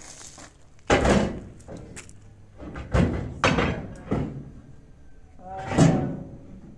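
Four heavy metallic thunks and clunks from the steel tailgate of a small pickup truck being handled at its latch, spread over several seconds.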